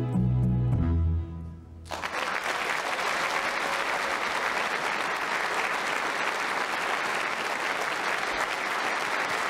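The closing chord of the song's accompaniment rings out and stops about two seconds in. Then the audience applauds steadily.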